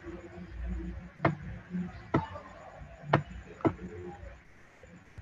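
Four sharp, irregularly spaced clicks of a computer mouse, the third the loudest, over a faint low background hum.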